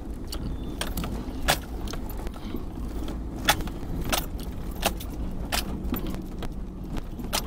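Keys jangling inside a moving vehicle, with sharp irregular clinks as it jolts along a dirt road, over the steady low rumble of the engine and tyres.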